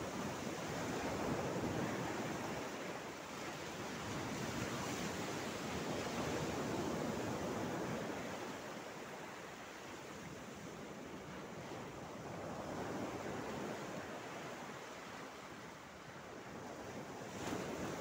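Mediterranean Sea waves breaking and washing over a flat rock shoreline, a rushing surf that swells and eases in slow surges. It is louder in the first half, with a short rush near the end.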